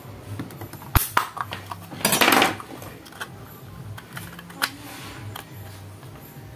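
Plastic AC power-adapter case being pried open with a kitchen knife: a sharp crack about a second in, a short crackling scrape around two seconds in that is the loudest part, then scattered small clicks as the snap-fit halves come apart.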